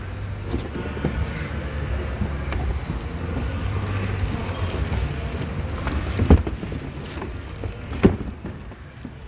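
Plastic bag wrapping and cardboard rustling and crinkling as roof crossbars are handled in their box, with two sharper knocks about six and eight seconds in, over a steady low hum.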